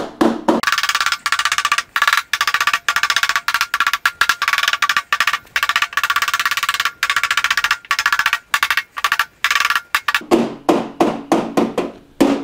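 Hammer beating the front edge of a sheet-metal skin down: a fast, continuous run of ringing metal blows, then slower, separate blows over the last two seconds.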